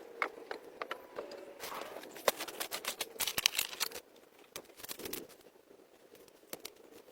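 Irregular clicks, snaps and scrapes of sticks and branches being handled, busiest from about one and a half to four seconds in, then sparser.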